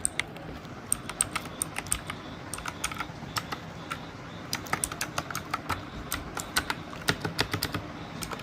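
Typing on an ANT Esports MK3400 Pro V3 mechanical keyboard with blue switches: a quick, irregular run of sharp key clicks, with a brief pause about halfway through.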